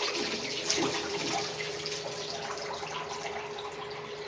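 Water running from a tap into a bathtub as a dog is bathed: a steady rushing splash with a faint steady hum underneath.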